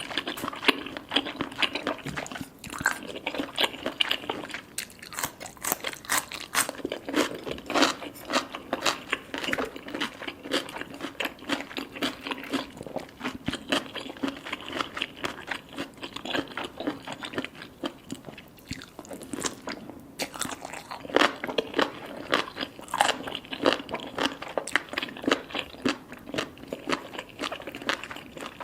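Close-up chewing and biting of baby cuttlefish, with soft crunches and wet mouth sounds: a continuous stream of small crackles and clicks with louder bites here and there.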